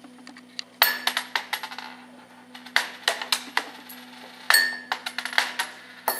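Coins clinking on a tabletop: several times a coin strikes the table and bounces, rattling quickly to rest with a short metallic ring. A steady low hum runs underneath.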